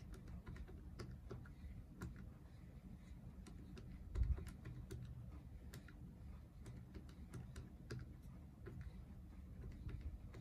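Keys of a Canon scientific calculator being pressed in a quick, irregular run of light clicks. There is a dull thump about four seconds in.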